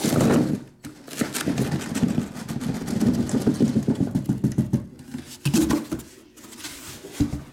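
A cardboard shipping case is lifted off a stack of sealed trading-card boxes, with cardboard scraping and rubbing at the start, then a few seconds of low fluttering rumble and a few short knocks.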